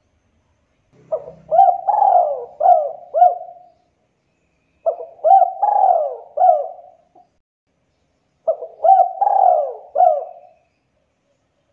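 Spotted dove cooing: three phrases a few seconds apart, each a quick run of four or five rolling coos.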